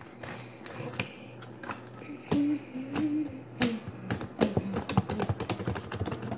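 Gooey, liquidy slime being squished and pulled in the hands, making quick wet clicks and pops that come thick and fast in the second half.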